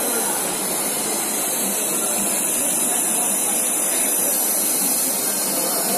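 Steady hiss and hum of a running 3D printer filament extrusion line, holding an even level throughout.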